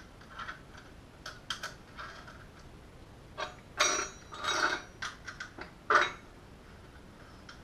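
Metal mounting bracket and housing of a sector antenna clicking, clinking and knocking as they are handled and the bracket is worked. There is a cluster of louder knocks and rattles around the middle and one sharper knock about three quarters through.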